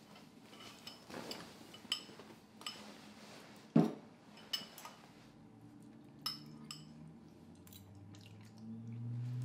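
Metal forks and spoons clinking and scraping against ceramic bowls as two people eat spaghetti: a scattering of light clinks, with one louder knock about four seconds in.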